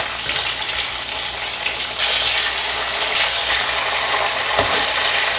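Whole fish frying in hot oil in a wok over a turned-down gas flame: a steady sizzle that gets a little louder about two seconds in.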